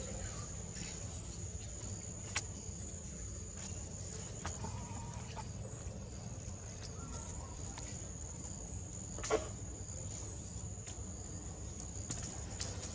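Steady outdoor ambience: a high insect drone over a low rumble, with a few faint short animal calls and one sharper call about nine seconds in.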